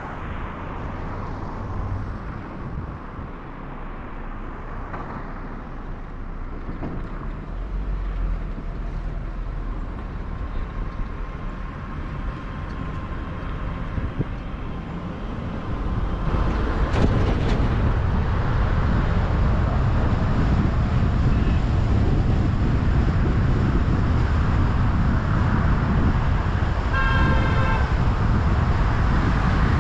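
A car being driven on a highway, with steady engine and tyre road noise that grows louder about halfway through. There is a short car-horn toot near the end.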